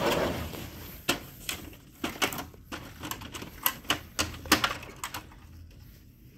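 Plastic printer housing being handled: a scraping rush about the start as the printer is turned round on the bench, then a string of irregular sharp clicks and knocks from its plastic covers being opened and worked, dying away near the end.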